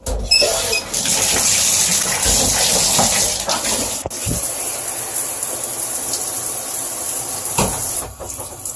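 Water spraying from a newly installed Waterpik EcoFlow shower head. The water comes on suddenly and runs as a steady, loud hiss of spray that eases slightly partway through and drops near the end.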